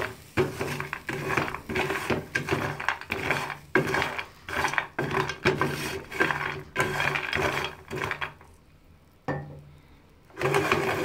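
Roasting peanuts being stirred with a wooden spatula in a metal pan: a busy rattle and scrape of nuts and wood against the pan. It stops about eight seconds in, with a brief scrape a second later and another near the end. The salted peanuts are nearly done.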